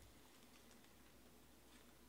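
Near silence: room tone with a low hum and a few faint, short clicks.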